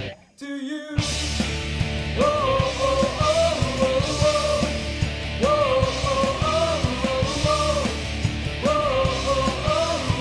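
Rock band music with drums, bass and electric guitars. The sound drops out for about half a second just after the start, then the band comes back in with a sustained melodic line that repeats about every three seconds.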